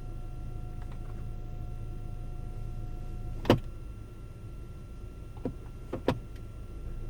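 Ford Kuga running in reverse gear with a steady low hum and a thin steady whine; the whine stops about three and a half seconds in with one sharp clunk, and a few lighter clicks follow about two seconds later. This is the abnormal noise that the owner suspects comes from a transmission solenoid.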